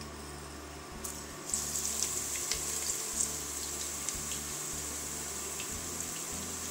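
Sliced onions hit hot vegetable oil in a kazan about a second in and start sizzling: a steady hiss with scattered crackling pops. A low hum cuts in and out beneath it.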